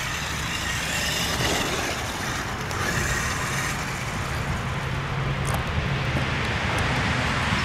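Traxxas X-Maxx electric RC monster truck driving over grass and gravel some way off: a steady, unbroken running noise from its motor and tyres.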